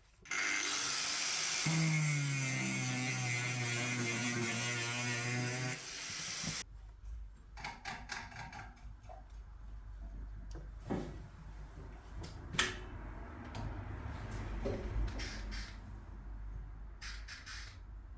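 Angle grinder running and cutting into sheet steel for about six seconds, then cutting off sharply. It is followed by a low hum and scattered clicks and knocks as the metal is handled.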